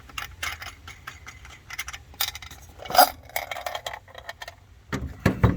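Irregular metal clinks, rattles and knocks of parts being handled at the truck's engine, with the loudest knock about three seconds in and a heavier low thump near the end.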